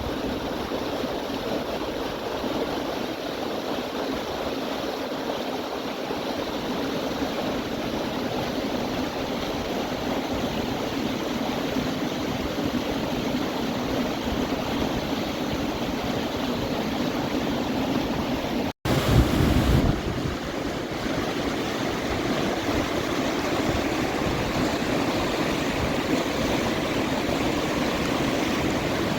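Steady rushing of the Lachine Rapids on the St. Lawrence River, an even wash of whitewater. About two-thirds of the way through, the sound cuts out for an instant, then a low rumble lasts about a second.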